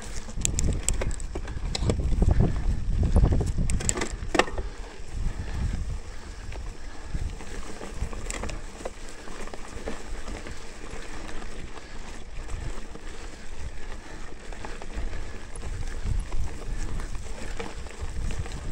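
Mountain bike being ridden along a dirt trail: a gusty low rumble of wind and ground noise, with a few sharp clicks and rattles from the bike about four seconds in.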